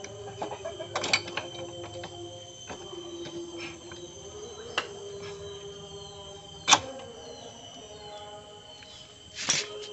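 Sharp metal clinks and taps of a steel hex wrench and bolts against a flywheel puller as it is fitted onto a motorcycle's magneto rotor, a few scattered strikes with the loudest about two-thirds of the way in, over a faint steady background hum.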